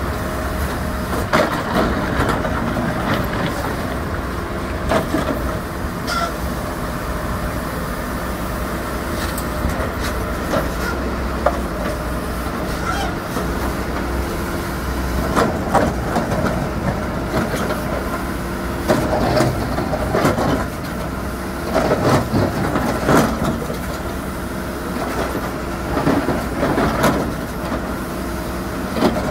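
Backhoe loader's diesel engine running steadily, with scattered clanks and knocks.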